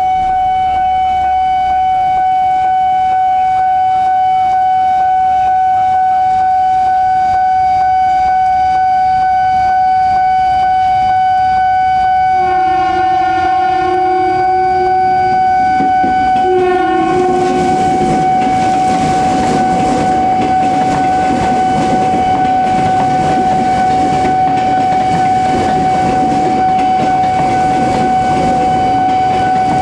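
A steady electronic warning tone from the level-crossing signal sounds throughout. About halfway through, a diesel locomotive's horn blows for several seconds with a short break near its end. The train then runs over the crossing slowly, its wheels rumbling and clacking on the rails.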